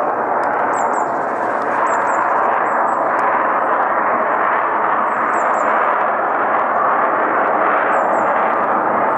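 Steady roar of aircraft passing overhead, rising a little in the middle, with a few faint, short high bird chirps above it.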